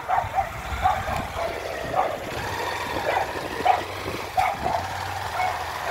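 A dog barking repeatedly, about two short barks a second, over a steady low vehicle engine hum.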